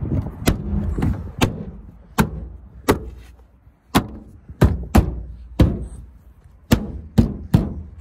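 Citroen C1 plastic door card being knocked home onto the door, its trim clips snapping into their holes: about a dozen sharp thumps, irregularly spaced half a second to a second apart.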